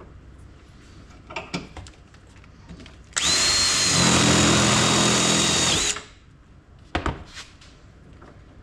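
Cordless drill running for about three seconds with a steady whine. It is spinning a bit too dull to cut through the plastic part held in the vise. A few handling clicks come before it and a knock comes after it.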